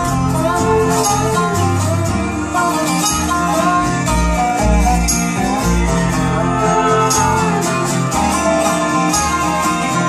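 Live acoustic string-band music in an instrumental break: acoustic guitars picking and strumming over upright bass notes, with a melodic lead line on top.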